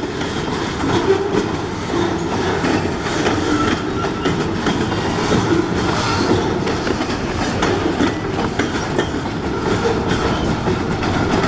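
Loaded log cars of a freight train rolling past over newly replaced, unballasted ties: a steady loud rumble with rapid clickety-clack of steel wheels on the rails.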